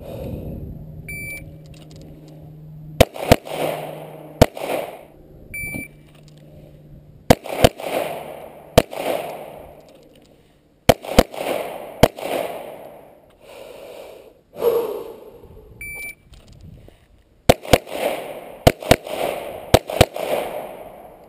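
Smith & Wesson M&P Pro Series 9mm pistol fired in quick strings of shots, each crack trailing a short echo, the last string the longest. A shot timer beeps shortly before most strings.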